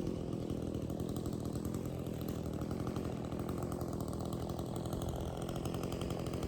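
Chainsaw engine running at a steady speed with no revving.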